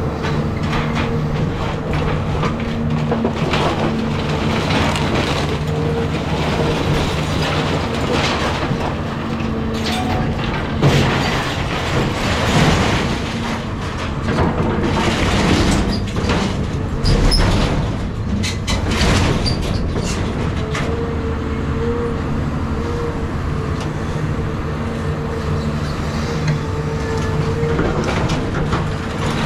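Caterpillar 323 excavator's diesel engine running steadily under working load with a steady hydraulic whine. Through the middle, wood and debris crack and crash as a house is torn down.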